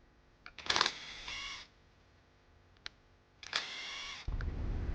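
Metal clicks, clinks and short scrapes as a worn cam phaser (timing-chain sprocket) from a Ford 3.5 EcoBoost engine is handled and taken apart. A steady low hum starts near the end.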